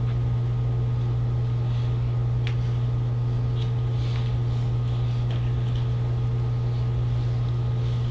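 Steady low mechanical hum, even and unchanging, with a few faint clicks.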